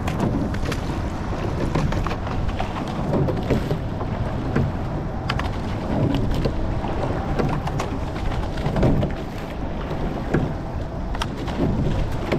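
An eight-oared rowing shell under way: a steady low rush of water and wind, with scattered sharp clicks and clunks of oars turning in their oarlocks as the crew rows.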